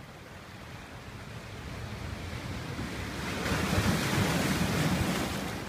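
A sea wave washing up the pebble beach. The surf swells from about two seconds in, is loudest a little past the middle, and eases off near the end.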